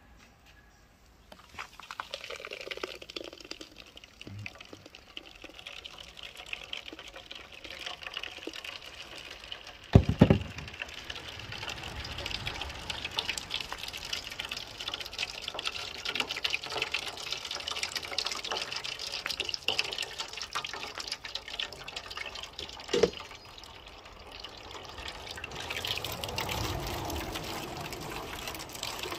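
Blended starfruit juice pouring through a mesh strainer into a stainless steel bowl, a steady trickling splash, with two sharp knocks, one about ten seconds in and one near the end.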